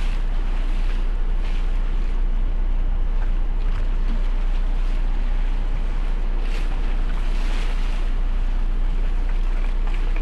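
Boat engine running steadily, with water and wind noise over it.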